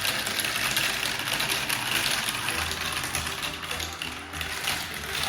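Many gumballs rolling and clattering down a plastic marble run at once: a dense, continuous rattle of small clicks.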